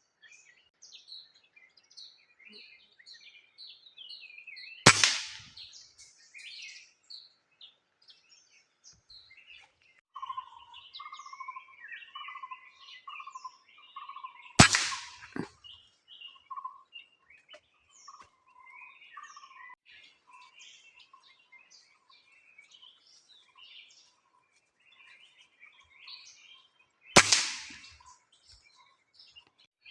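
Three single shots from a PCP air rifle firing 5.52 mm pellets, each a sharp crack, about five, fifteen and twenty-seven seconds in. Birds chirp and call throughout, with a series of repeated short notes from about ten to nineteen seconds in.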